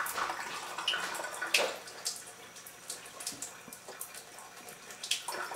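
Water running steadily from the countertop water ionizer's spout into a kitchen sink, with a few light clicks and taps scattered through.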